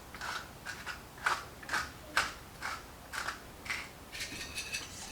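Hand pepper grinder being twisted to crack peppercorns, a series of short dry rasps about two a second.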